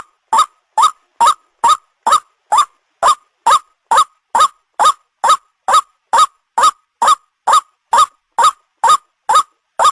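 White-breasted waterhen (ruak-ruak) calling, a steady run of short, evenly spaced notes a little over two a second, each with a quick rise and fall in pitch. It is the repeated call used as a lure to draw waterhens in.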